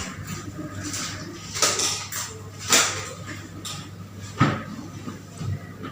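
Handling noises: a few separate light knocks and clatters, a second or more apart, as objects are moved and set down.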